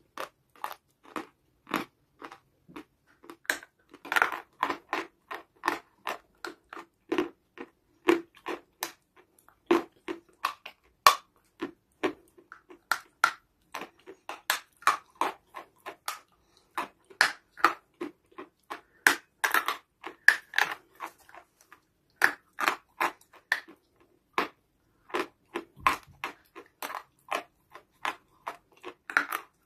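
A person biting and chewing brittle chalky clay close to the mouth, with many sharp crunches at an irregular pace.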